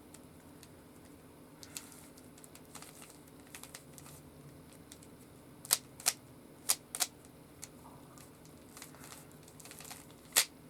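Rubik's Cube being twisted by hand: a handful of sharp plastic clacks as its layers are turned, a cluster of four about halfway through and one more near the end, over a faint steady hum.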